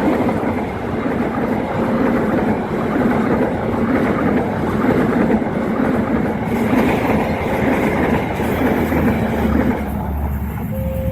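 Train passing close by at speed, its wheels clattering over the rails, the noise easing off near the end.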